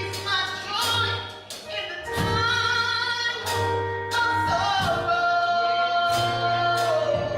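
Gospel music: a sung melody over bass and drums, with a long held note in the second half that dips near the end.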